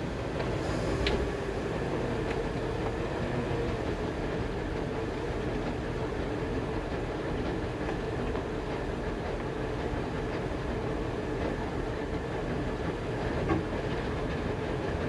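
Steady rumbling noise aboard a motorboat, engine and water together, unbroken throughout, with a brief click about a second in and a small knock near the end.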